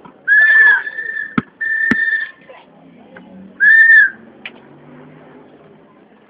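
A series of loud whistle blasts at one high pitch, four short notes in the first four seconds, two of them bending briefly up and down. Two sharp smacks fall between them.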